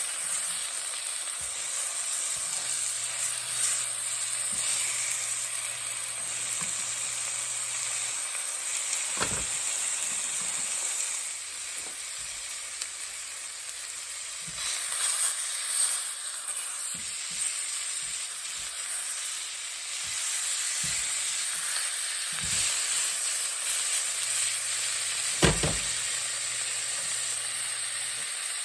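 Chicken pieces sizzling steadily in hot oil in a frying pan as they brown, with a few sharp knocks, the loudest about nine seconds in and near the end.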